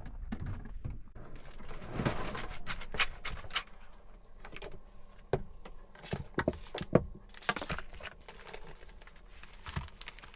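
Objects being handled, with irregular clicks, knocks and short rattles.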